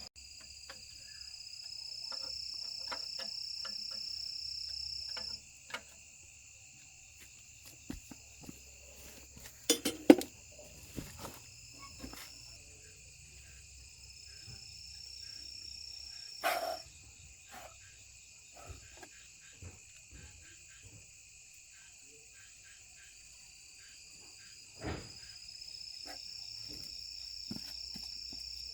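Insects calling in a steady, high-pitched chorus, one call swelling for several seconds near the start and again near the end. Scattered small clicks and knocks, the loudest about ten seconds in.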